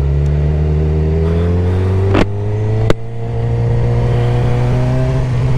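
Suzuki GSX-R600's inline-four engine under way, rising in pitch as the bike accelerates. It dips briefly with a sharp click a little over two seconds in, gives another sharp click near three seconds, then pulls steadily and climbs again, with a rush of wind noise.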